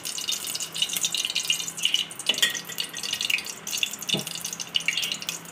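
Dalda (hydrogenated vegetable ghee) heating in an aluminium pot, with steady fine crackling and sizzling. Two light knocks, about two seconds in and again near four seconds, as a ladle touches the pot.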